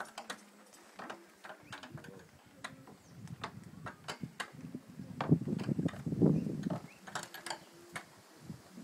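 Irregular sharp knocks and clacks of hammering on a bamboo-and-wood building frame, with a heavier, louder run of blows and clatter about five to six and a half seconds in.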